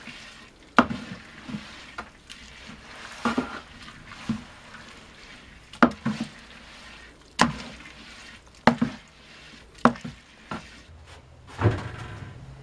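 Wooden paddle stirring the cap of crushed red grapes down into the fermenting must in a plastic barrel: wet squelching and sloshing of the grape mash, with sharp knocks every second or two.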